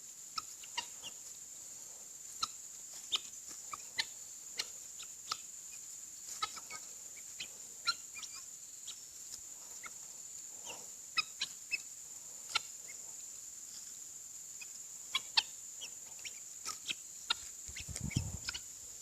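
Backyard fowl calling: scattered short, sharp clucks and peeps, one or two every second, over a steady high-pitched drone.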